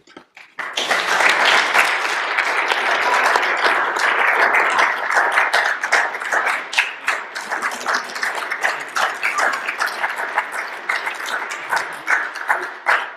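Congregation applauding. The applause starts about a second in, holds steady, and thins out to scattered single claps near the end.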